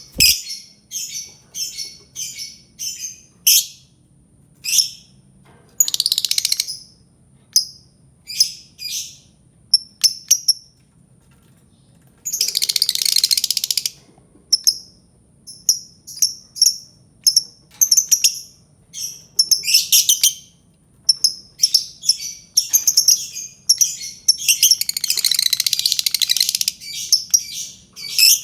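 Albino lovebird calling: a string of short, shrill chirps broken by two long, rapid chattering runs, the first about twelve seconds in and the second about twenty-four seconds in.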